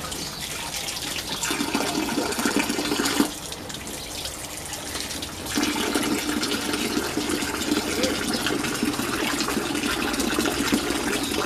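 A stream of water from a hose pouring and splashing into a shallow plastic paddling pool. It goes quieter for about two seconds a little past three seconds in, then comes back.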